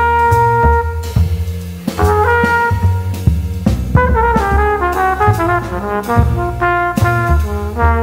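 Jazz trumpet solo on a ballad, over bass and drums with light cymbal strokes. The trumpet holds long notes at first, then plays a run of quicker notes about halfway through.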